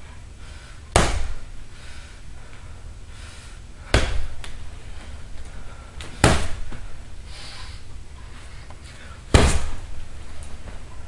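Fists punching a hanging bag wrapped in painted fabric: four hard thumps, about a second in, at four seconds, just past six seconds and just past nine seconds. The last one is the loudest.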